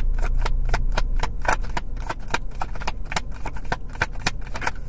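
A deck of tarot cards being shuffled by hand: a quick run of card clicks and flicks, about eight a second, stopping near the end.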